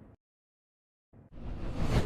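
Edited whoosh sound effect: the tail of one fades out right at the start, and after a moment of silence another swells up, rising in pitch and growing louder before cutting off near the end.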